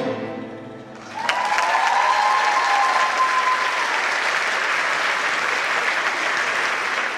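Audience applause breaking out about a second in, as the dance music fades out, with a drawn-out high cheer over the first couple of seconds of clapping.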